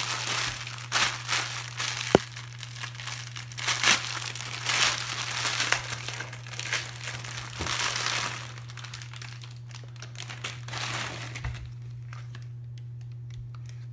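Clear plastic bag crinkling and rustling in bursts as a folded cotton shemagh is pulled out of it, with a sharp click about two seconds in. The handling turns quieter about two-thirds of the way through.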